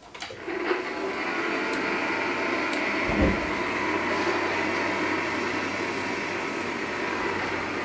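Forge blower running with a steady whoosh, coming up to speed in the first half second after it switches on. A dull thump about three seconds in.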